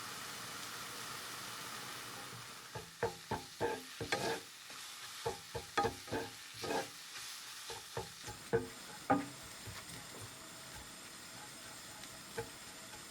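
Food sizzling as it fries in a pan, with a utensil knocking and scraping against the pan as it is stirred: a steady sizzle at first, then a run of sharp clacks from about three seconds in to about nine.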